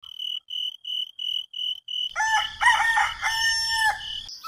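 A run of short high beeps, about three a second, then a rooster crowing from about halfway through: two short notes and a long held one.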